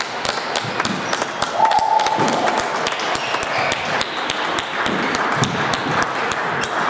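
Table tennis balls clicking sharply off tables and bats, many irregular clicks from rallies on several tables in a large hall. A short steady squeak sounds about a second and a half in.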